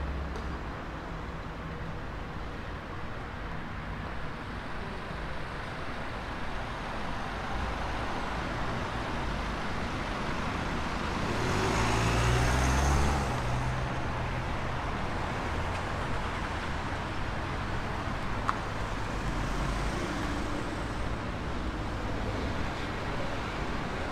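Steady street traffic noise, with a motor vehicle passing close about halfway through, its engine and tyres swelling and fading. A single short click comes later on.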